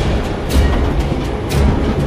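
Suspense background music with a heavy, deep beat striking about once a second, twice here.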